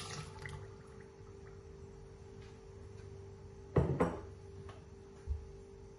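Milk poured into a glass blender jar over bananas, eggs and sugar, the splashing pour tailing off within the first second. A steady low hum runs underneath, and about four seconds in come two sharp knocks close together, then a soft low thud.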